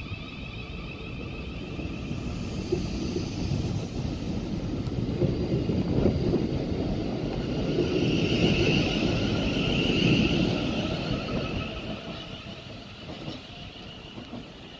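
South Western Railway electric multiple unit pulling out of the station, its traction motors whining as it gathers speed. Wheel and body rumble builds to a peak about nine seconds in, then fades as the train draws away.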